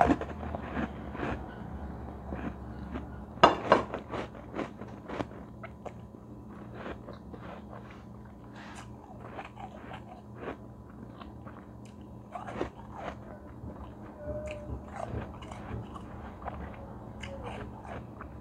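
A person biting into and chewing a large lump of soft, granular ice: a steady run of crisp crunches, loudest in a burst about three and a half seconds in, then lighter crunching and chewing.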